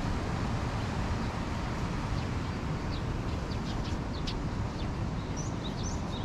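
Birds chirping in short, high notes, many times from about two seconds in, over a steady low outdoor rumble.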